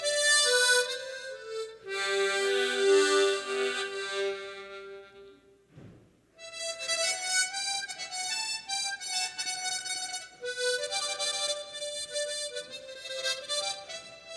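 Tremolo harmonica playing a slow, sustained melody. A phrase dies away about five seconds in, followed by a short break with a soft knock. The tune then resumes a little more softly.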